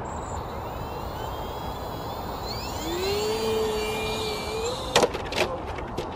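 3D-printed flying-wing RC plane's motor and propeller whining, rising in pitch as it spins up after a hand launch, then a sharp impact and a few smaller knocks about five seconds in as the plane crashes into the ground.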